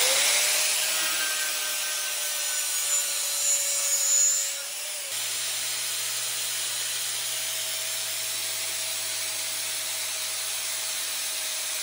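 Angle grinder running at full speed with its spinning disc pressed against the rim of an aluminium wheel on a bearing shaft, friction-driving the wheel up to high speed. A steady whine over a rubbing hiss, which changes character about five seconds in.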